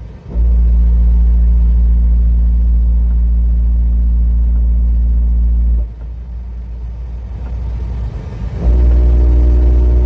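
Vehicle's engine and road drone heard from inside the cab while driving: a steady low hum with a few even tones above it. It drops away about six seconds in and comes back shortly before the end.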